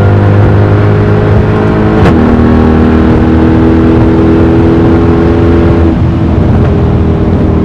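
Mercedes-AMG E63's V8 with a loud exhaust under load, upshifting about two seconds in with a sharp crack and a step down in pitch, then pulling steadily before easing off slightly near the end.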